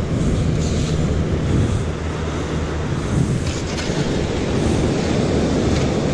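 Wind buffeting the microphone over the rush of ocean surf: a steady, even noise with a low hum underneath and a few faint scratchy sounds.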